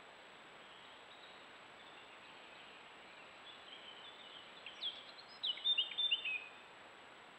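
A songbird sings a short phrase of quick, high, falling notes about five seconds in, over the steady hiss of a trail camera's microphone.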